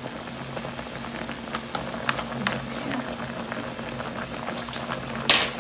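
Beef ribs boiling in broth in a stainless steel pot: steady bubbling with many small pops, over a steady low hum. A single sharp clink near the end.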